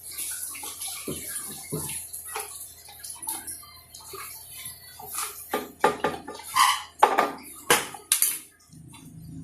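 Sticky glue slime being squished and pulled by hand, making irregular wet squelches and pops.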